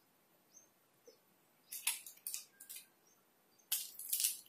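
Plastic fishing-tackle packaging handled by hand, rustling and clicking in short spells about two seconds in and again near the end.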